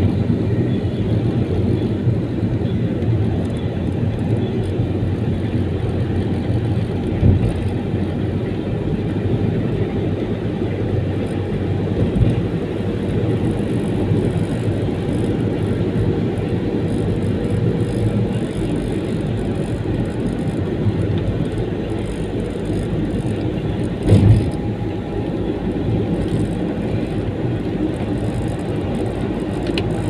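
Steady low rumble of a vehicle in motion, with three brief knocks, the loudest about 24 seconds in.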